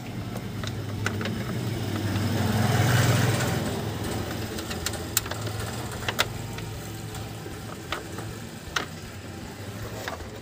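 A motor vehicle's engine running steadily, growing louder to a peak about three seconds in and then fading. A few sharp clicks follow in the second half.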